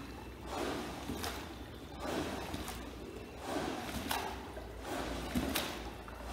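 A long-handled rug-washing paddle pushed over a soaked wool rug: repeated wet, scraping swishes as soapy water and suds are driven through the pile, about one stroke a second, with a sharp click at some of the strokes.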